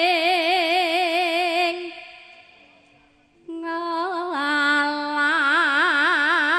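A high singing voice holding long notes with a wide, even vibrato. The first phrase fades out about two seconds in; after a short pause a second phrase begins, steps briefly up and then down in pitch, and holds the lower note with the same vibrato.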